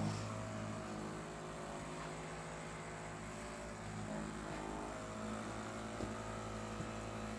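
Electric handheld massager running with a steady, low motor hum.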